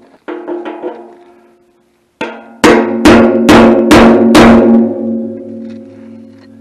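Hammer striking steel: a few light taps near the start, then five hard blows about half a second apart, with a metallic ringing that lingers and fades. This is hammering at the stuck sediment-bowl fitting in the tractor's steel fuel tank.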